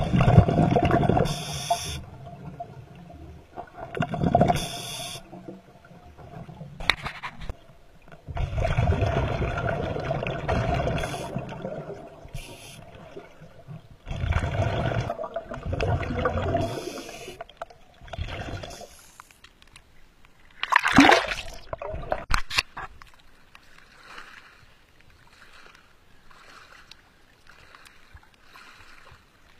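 Scuba diver's exhaled bubbles rushing out of the regulator in gurgling bursts every few seconds underwater. About three-quarters of the way through comes a sharp splash, then a quieter wash of small waves lapping at the camera on the surface.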